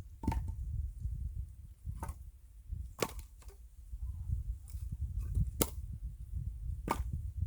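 An axe chopping and splitting firewood logs: five sharp strikes, spaced unevenly about one to two seconds apart, over a steady low rumble.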